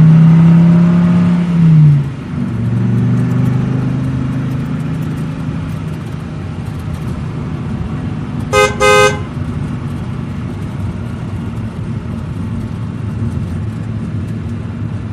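Vehicle engine running steadily. Its pitch drops about two seconds in, then settles into a lower steady drone. A horn toots twice in quick succession about nine seconds in.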